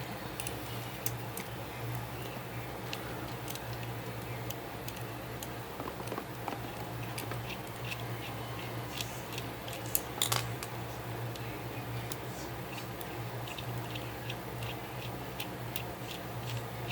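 Light scattered clicks and ticks of small plastic toy-figure parts being handled and pried apart as an action figure's limb is disassembled, with a louder cluster of clicks about ten seconds in, over a steady low hum.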